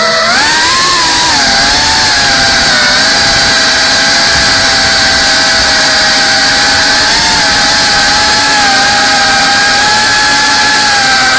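GEPRC CineLog 35 cinewhoop's brushless motors and ducted propellers running with a high whine, rising in pitch about half a second in and then held nearly steady.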